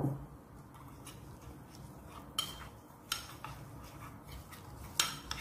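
A metal spoon stirring ground spices into olive oil in a bowl, scraping softly with a few sharp clinks against the bowl.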